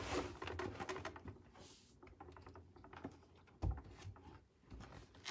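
Aluminium rod sliding through the holes of a plastic brooder's panels: light clicking and scraping of metal on plastic, with a sharp knock about a third of the way through and another near the end.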